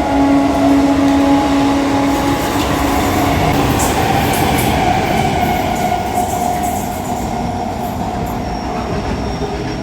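Electric local train running on the rails, with a steady rumble and wheel noise and scattered short metallic clicks. A steady pitched tone fades out about three and a half seconds in, and a higher tone sags slightly in pitch through the middle.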